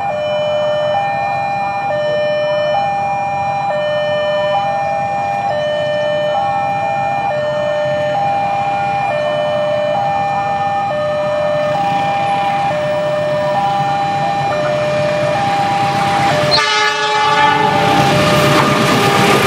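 Level-crossing warning alarm: an electronic two-tone signal alternating high and low, each note just under a second. Near the end a train horn blows, and the rumble of the approaching train grows louder.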